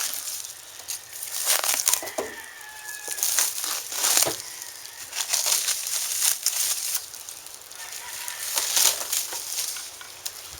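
Packaging wrap crinkling and rustling in irregular bursts as it is pulled off a freshly coated fuel tank.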